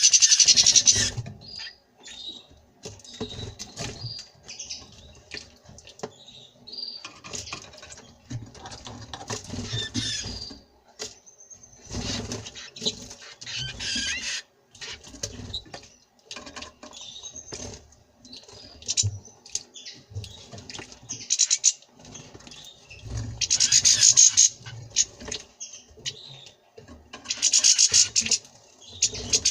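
European goldfinch and common rosefinch bathing in a water dish: bursts of splashing and fluttering wings, the longest near the end, with short chirps and calls in between.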